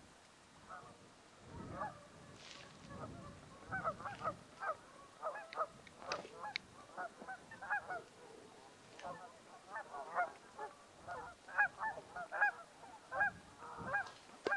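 A flock of geese honking, many short calls overlapping irregularly and growing busier after the first few seconds, with a few low wind rumbles on the microphone early on.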